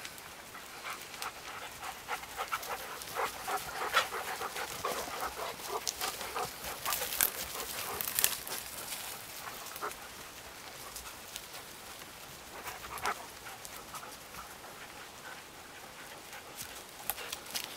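Several dogs panting as they run around, with many short crackles and rustles in the undergrowth. The crackling is busiest in the first ten seconds and thins out after that.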